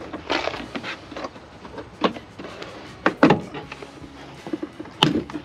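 Plastic trim clips snapping loose and a hard plastic trim panel clattering as it is pried off a Ford Bronco's rear cargo sill with a plastic trim tool; several sharp irregular snaps between rustling.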